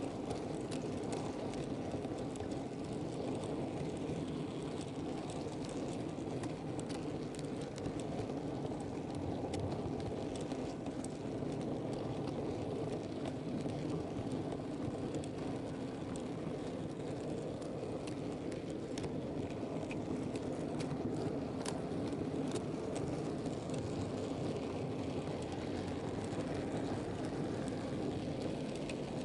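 Model railway goods wagons rolling along the track, heard from on board the train: a steady rumble of metal wheels on the rails with scattered light clicks over rail joints and pointwork.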